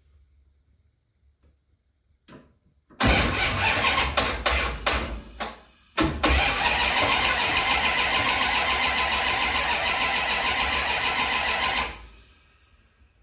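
Starter cranking a small-block Mopar V8 over without it firing, in two goes: a short uneven burst about three seconds in, then after a brief break a longer steady crank that stops suddenly. The rockers have been loosened to take tension off the cam and lifters while checking for a metal-to-metal knock.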